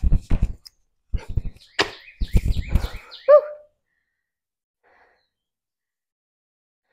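Hands and sneakers thudding and scuffing on a concrete floor with breathing as a person finishes a burpee and stands up, a sharp click near two seconds in, then a short pitched note just after three seconds, after which the sound cuts off.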